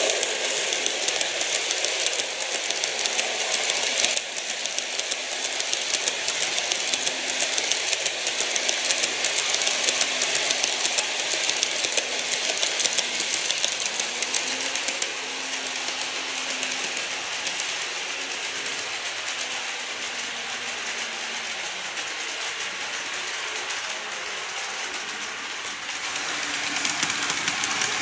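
Model EH200 electric locomotive and its train of Taki 1000 tank wagons running on model track: a steady small-motor hum under a rapid, continuous clicking of wheels over the rail joints, the hum dropping away and the running getting quieter near the end.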